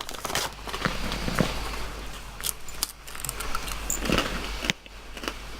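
Crunchy snack bites being handled and chewed: a plastic snack bag rustling and crinkling, with crisp crunching clicks.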